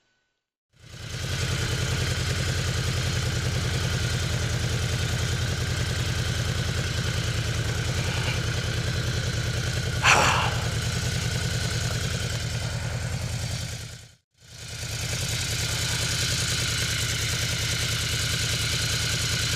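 Yamaha VMAX motorcycle's V4 engine running steadily, with a short louder burst about ten seconds in. The sound cuts out for an instant around fourteen seconds and then comes back unchanged.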